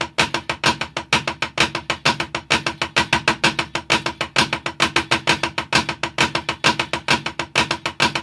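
Marching snare drum played with sticks in a steady, unbroken stream of strokes with regular accented hits: a rudimental flam accent exercise.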